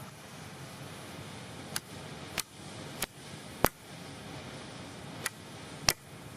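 Six sharp, short knocks like chopping strokes, coming roughly every half second to second, over a steady low hiss.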